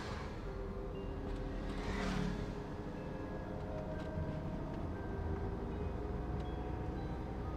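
Steady road and engine noise of a car driving on a hill road, heard from inside the cabin. An oncoming vehicle swishes past about two seconds in.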